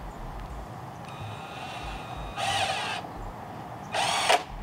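Cordless impact driver driving a long deck screw into a wooden frame rail, in two short runs of about half a second each, the second about a second and a half after the first.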